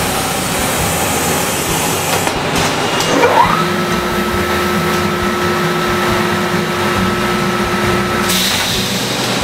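Unipress shirt pressing unit running its cycle: a loud, steady rush of blown air. About three seconds in, a machine whine rises and then holds steady, and it cuts off shortly before the end.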